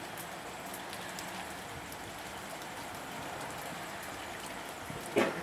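Rain falling steadily on wet pavement, an even hiss with single drops ticking close by. A brief, louder sound cuts in near the end.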